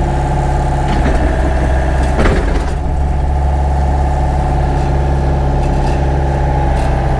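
Hyundai mini excavator's diesel engine running steadily while the bucket digs into a dirt bank. A brief louder noise comes about two seconds in.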